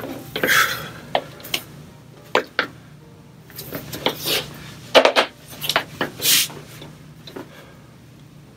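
Steel-framed folding camp stool clicking and creaking under the weight of a seated adult of about 180 lb, with a few brushing rustles as he shifts on the fabric seat. The short clicks come at irregular moments, with louder rustles about half a second in, around four to five seconds in, and again a little after six seconds.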